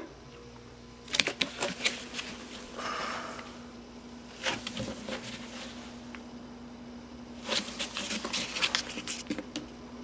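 Cardboard packaging wrapped around a new scooter tire being handled, crackling and rustling in several bursts, over a steady low hum.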